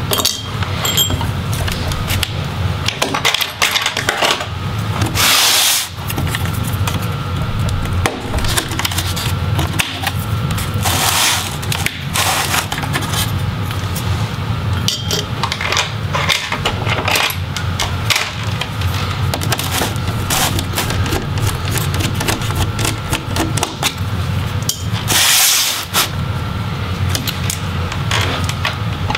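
Plastic pry tools clicking, tapping and scraping against a laptop's plastic bottom case while prying off the small lower hinge covers, with two longer, louder scrapes about five seconds in and near the end.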